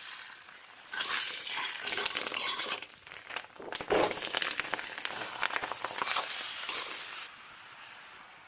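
Food sizzling in a frying pan as it is stirred, with a spatula scraping and clinking against the pan. It starts about a second in and cuts off suddenly near the end.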